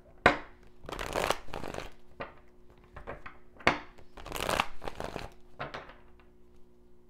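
A tarot deck being shuffled by hand: several bursts of cards sliding and slapping together, with two sharper snaps, one just after the start and one about halfway through.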